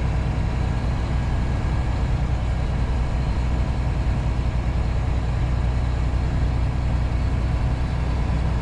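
Semi-truck's diesel engine running steadily under light throttle, with road noise, heard from inside the cab as a constant low drone.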